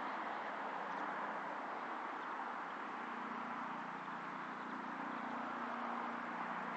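Steady outdoor ambient noise with no clear sound from the dogs, and a faint low hum joining about three seconds in.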